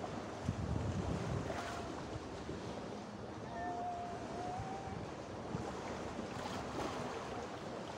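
Sea water washing against a rocky shore, a steady wash of noise with some wind rumble. About halfway through a faint, thin, drawn-out call rises above it for about a second.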